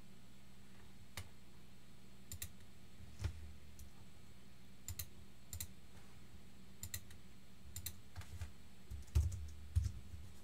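Sparse, irregular keystrokes and clicks on a computer keyboard, a few of them in quick pairs, with two louder knocks near the end, over a faint steady hum.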